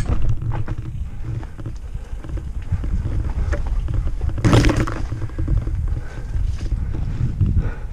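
Mountain bike riding fast down a dirt singletrack: a steady low rumble of wind and tyres on the microphone, with the bike rattling and knocking over bumps in the trail. A louder rushing clatter comes about halfway through.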